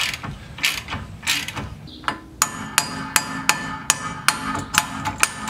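A wrench works the centre bolt of a gear puller on a BMW E30's rear hub. From about two and a half seconds in come sharp metal hammer blows, about three a second and ringing, as the hub's drive flange is knocked out of the rear wheel bearing.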